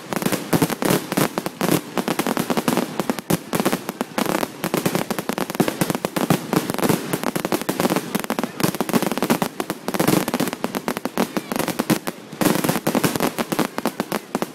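Fireworks display: a dense, rapid barrage of bangs and crackles with brief lulls about ten and twelve seconds in.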